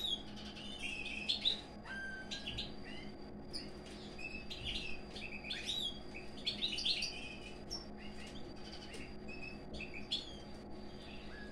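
Pine grosbeaks chirping and twittering in a rapid run of short notes, many sliding up or down in pitch, as the male courts the female. A faint steady hum lies under the calls.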